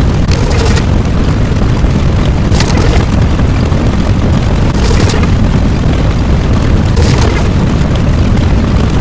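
A loud, continuous deep rumble, like a sustained explosion or eruption sound effect. A brighter hissing surge rises over it about every two and a half seconds.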